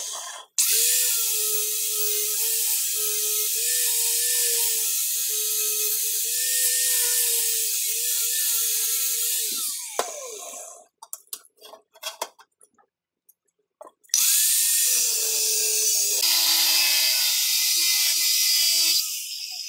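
Angle grinder with a thin cut-off disc cutting through flat steel bar, its motor whine steady under load. About ten seconds in, it is switched off and winds down with a falling whine, followed by a few light clicks and clinks. Some fourteen seconds in, it starts up and cuts again.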